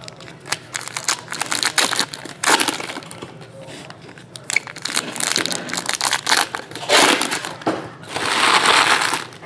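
Foil trading card pack wrappers crinkling and crumpling as packs are handled and torn open, with a longer, louder rustle about eight seconds in.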